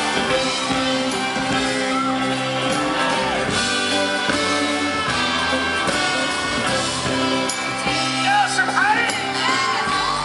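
Live band playing a rock song through a concert PA, with sung notes held over the instruments. Voices whoop and shout about eight seconds in.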